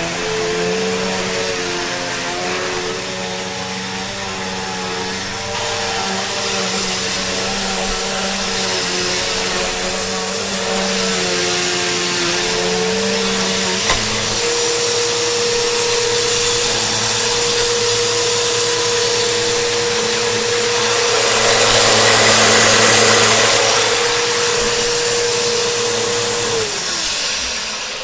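2005 Bissell Powerforce Bagless upright vacuum running, its brushroll bearings freshly oiled: a steady motor whine over rushing air, wavering in pitch as it is pushed over the rug. About halfway a click as it is stood upright, after which the whine holds steady. Near the end it is switched off and the whine falls away as the motor spins down.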